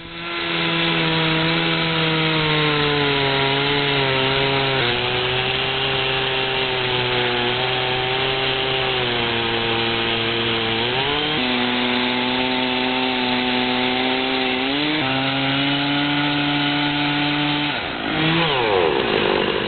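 Chainsaw mounted in an Alaskan chainsaw mill, running at high revs while ripping lengthwise through a log; the engine pitch sags and recovers a few times as the load changes, then falls away near the end.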